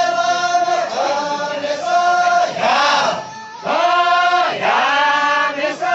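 A group of dancers, mostly men's voices, chanting a folk-dance song in unison, with long held notes that swoop up and down in pitch, phrase after phrase.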